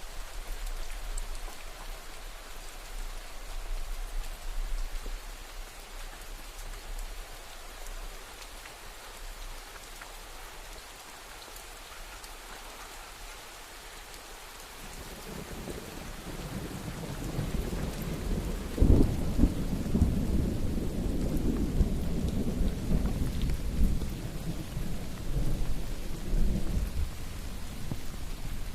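Steady rain falling, with thunder rolling in about halfway: a low rumble builds, breaks into a sharp loud crack a few seconds later, then rumbles on for several seconds.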